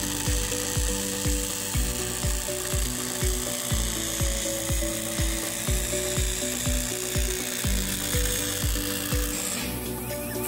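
Background music with a steady beat, over the even hiss and buzz of a TIG welding arc on aluminium. The arc hiss drops away near the end.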